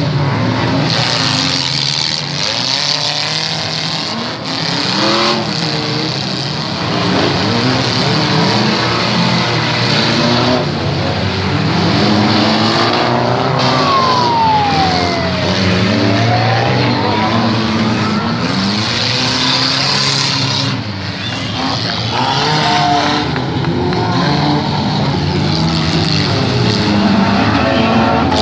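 Several demolition-derby cars' engines revving hard at once, their notes rising and falling as they accelerate and back off. About halfway through, a thin whine falls and then rises again.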